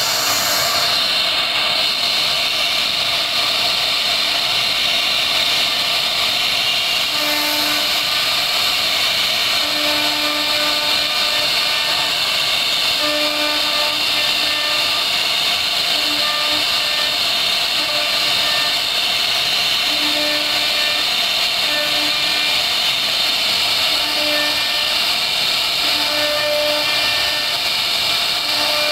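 CNC router spindle running at high speed with a steady high-pitched whine and hiss as its cutter carves a pattern into a wooden board. Short low tones come and go through it every second or two.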